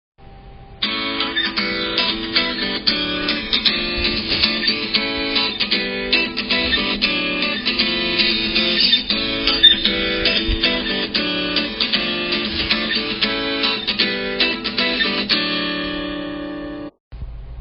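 A guitar ringtone playing on an iPhone: quick plucked and strummed acoustic-guitar notes, ending in a held chord that fades out.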